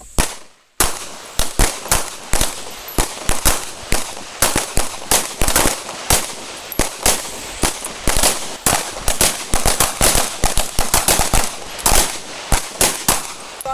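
Several handguns fired rapidly by a line of shooters, shots overlapping in dense, irregular volleys. The shooting starts again about a second in after a brief pause.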